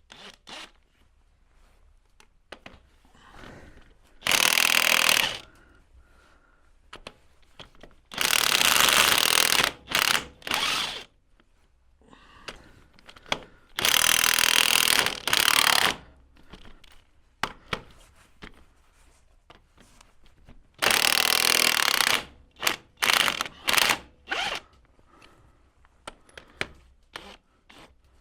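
A workshop power tool run in short bursts of one to two seconds, about four main bursts with several brief blips after the last.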